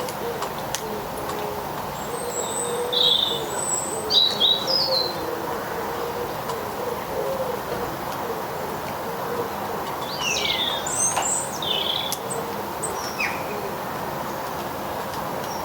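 Small garden birds chirping and calling in two short flurries, a couple of seconds in and again about ten seconds in. A low cooing call wavers underneath through the first half.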